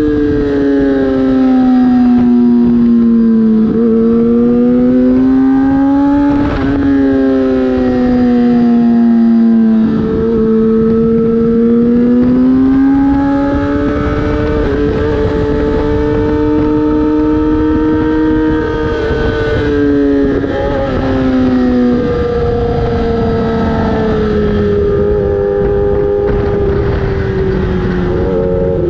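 Racing motorcycle engine heard from on board at race speed. Its pitch climbs and falls over several seconds at a time as the bike accelerates and brakes, with short breaks and jumps in pitch at the gear changes. Wind rushes over the microphone throughout.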